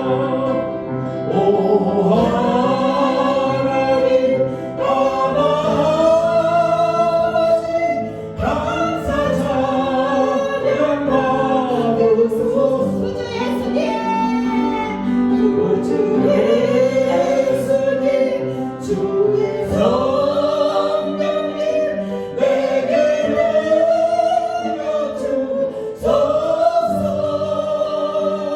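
A congregation singing a Korean worship song together, over steady held instrumental accompaniment.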